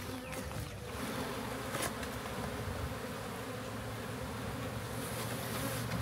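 A large swarm of honey bees buzzing in a steady, dense hum, with one light click about two seconds in.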